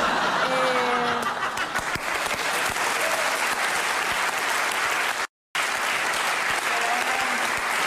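Studio audience and panel applauding in a steady, dense wash of clapping. The sound drops out completely for an instant about five seconds in.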